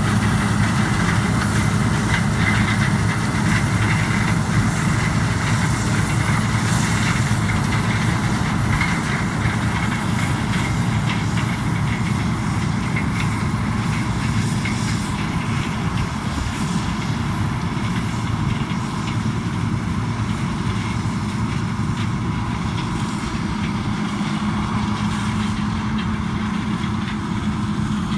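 Large diesel farm machinery running steadily at close range: a constant low engine hum under an even mechanical rush.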